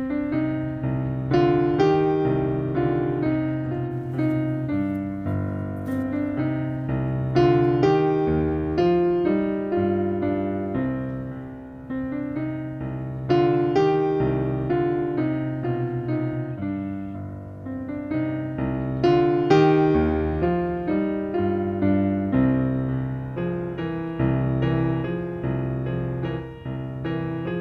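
Solo piano background music: a slow Ländler in C minor, struck notes that ring and fade over steady bass notes.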